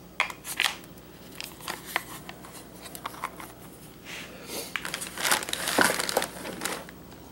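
Clear plastic packaging crinkling and rustling in irregular bursts as a power adapter and its cord are handled and set back into a cardboard box, busiest and loudest in the second half.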